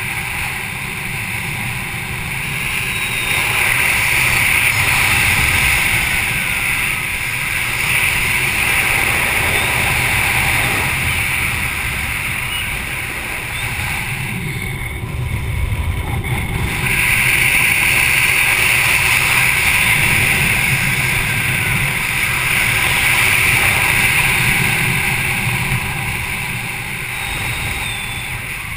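Steady rush of airflow over an action camera's microphone under an open parachute canopy: a hissing, rumbling wind noise that swells and eases every few seconds, thinning for a couple of seconds about halfway through.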